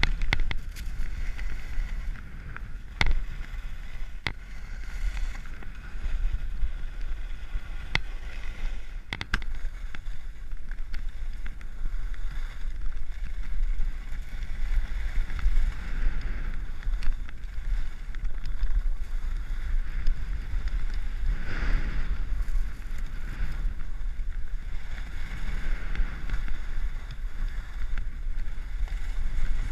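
Wind rushing over a helmet camera's microphone while Rossignol Sin 7 skis carve and scrape across groomed snow, the scraping hiss swelling and fading with each turn. A few sharp clicks in the first ten seconds.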